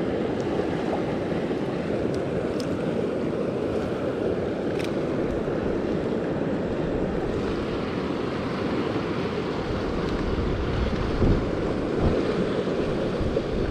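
Steady rush of flowing creek water, with wind buffeting the microphone in low gusts from about ten seconds in.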